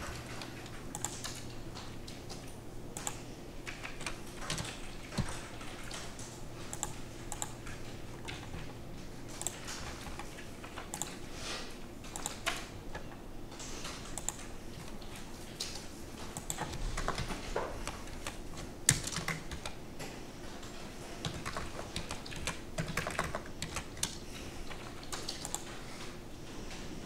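Typing on a computer keyboard: irregular key clicks in short runs, over a faint steady hum.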